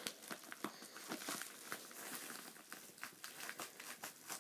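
Faint crinkling and crackling of a shipping package being handled and opened, a run of small irregular clicks and rustles.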